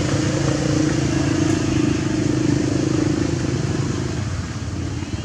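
An engine running with a steady low hum, which fades about four seconds in.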